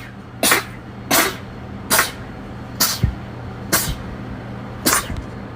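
A young woman's rapid sneezing fit: six short, sharp sneezes about a second apart, over a steady low hum.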